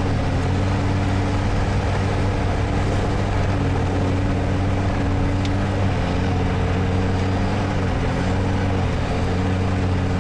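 All-terrain vehicle's engine running at a steady speed while it drives over snow, a constant hum with only slight changes in pitch.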